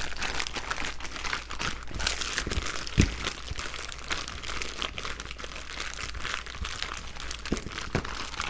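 Plastic zipper bag holding chicken drumsticks in marinade, crinkling steadily as it is turned over and kneaded by hand. A single thump about three seconds in is the loudest sound.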